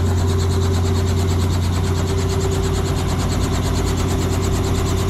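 Robinson R44 helicopter running at idle on the pad: a steady engine hum with a rapid, even beat from the turning rotor blades.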